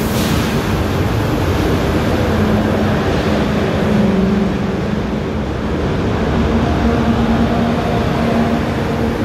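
TGV Réseau double-unit high-speed train pulling out slowly past the platform: loud, steady running noise with a low hum through it, the hum standing out more in the second half as the coupled middle power cars draw near.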